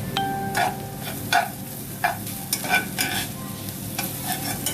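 Garlic frying in hot oil in a pan, sizzling while a metal utensil stirs and scrapes it in repeated strokes about every half second. A short metallic ring sounds near the start as the utensil strikes the pan.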